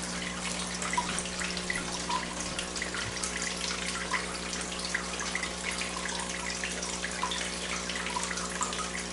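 Water trickling and dripping steadily, with a low steady hum underneath.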